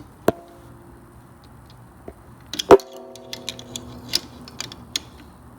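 Metal tools clicking and knocking on a garage door opener's trolley and rail while the belt-tension nut is tightened with a screwdriver: a sharp click just after the start, one loud knock about 2.7 s in that rings briefly like struck metal, then scattered light ticks.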